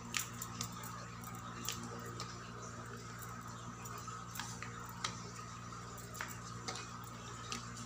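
Light, scattered clicks and taps as dough is turned by hand and rolled out with a metal rolling pin on a floured wooden board, over a steady background hum.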